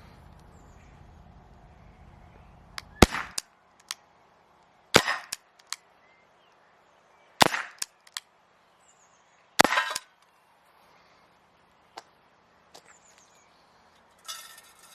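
Walther CP99 CO2 air pistol fired four times at a tin of pellets, one sharp crack about every two and a half seconds, with smaller clicks just after each shot.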